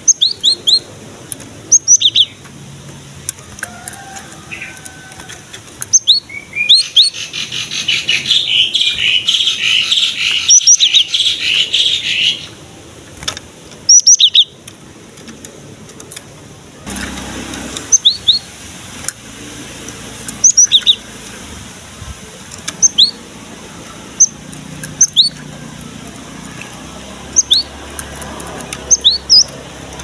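Cinereous tit singing in full song: sharp, short high whistled notes in groups of two or three, repeated every second or two. A dense, fast chattering run lasts about five seconds, starting about seven seconds in.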